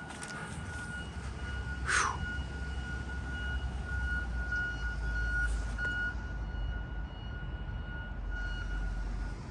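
Wind rumbling on the microphone, with a steady high-pitched tone sounding throughout and one quick falling whistle about two seconds in.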